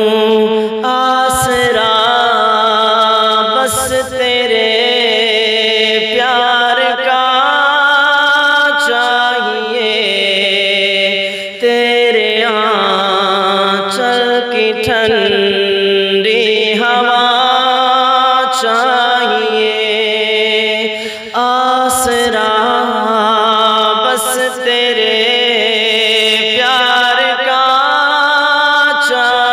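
A man singing a naat solo, in long drawn-out melodic phrases over a steady low drone.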